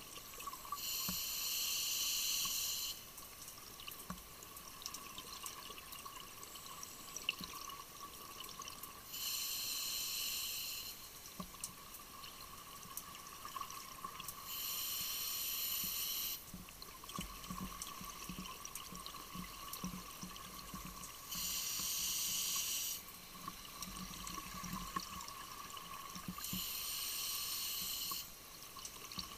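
Underwater scuba breathing: a diver's regulator exhaling bubbles in five bursts of about two seconds each, roughly every six seconds, with quieter inhalation between them. A faint steady high hum runs underneath.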